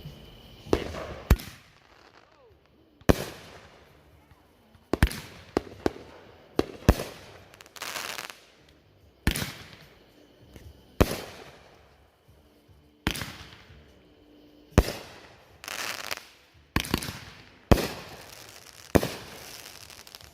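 Inferno consumer firework cake firing its shots: sharp bangs about every one to two seconds, each followed by a short fading tail.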